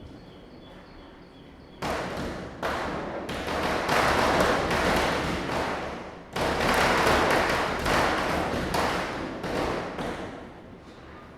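Firecrackers bursting. A few sharp bangs come about two seconds in, then a dense run of rapid cracks. After a brief lull a second dense run starts suddenly and tails off near the end.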